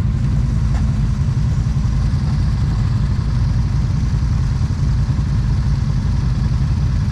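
ATV engine running steadily, with no revving.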